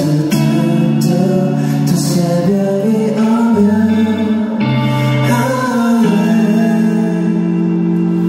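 A man singing a song live into a handheld microphone over band accompaniment, ending on a long held note.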